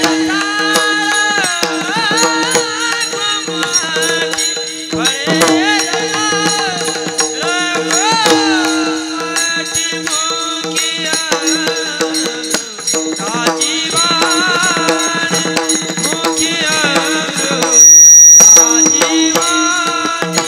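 Marathi kirtan accompaniment between sung verses: held drone notes with tabla and small hand cymbals keeping time, and a melody line that slides in pitch. Near the end a loud, high-pitched whistle sounds for under a second.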